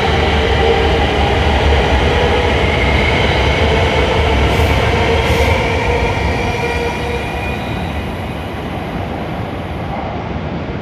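E7 series Shinkansen train running slowly through the station, a steady rumble with a light motor whine. It fades gradually over the second half.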